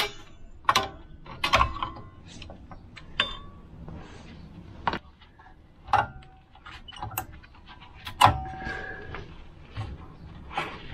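Irregular metal clinks and taps as the Volvo 940's rear handbrake shoes and their springs are worked on by hand and with a screwdriver, about eight in all, several ringing briefly.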